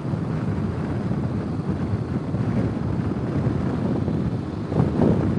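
Ural motorcycle's air-cooled flat-twin engine running steadily while riding along, under wind buffeting on the microphone, with a few louder gusts near the end.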